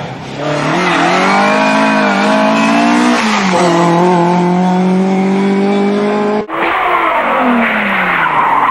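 Rally car engine at full throttle, pitch climbing and then held steady at high revs. An abrupt cut about six and a half seconds in leads to another car, its engine pitch dropping and climbing again as it lifts and accelerates.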